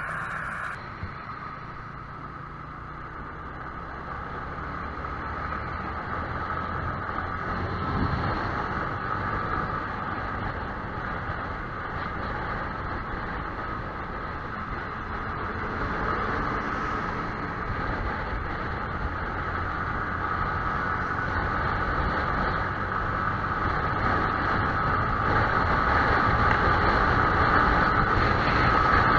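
Yamaha YZF-R15 motorcycle on the move: engine and riding noise that slowly grows louder.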